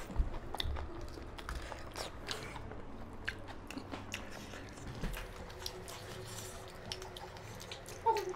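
Close-up eating sounds: biting, chewing and crunching on fried bora fritters eaten by hand, with many small crackles scattered throughout.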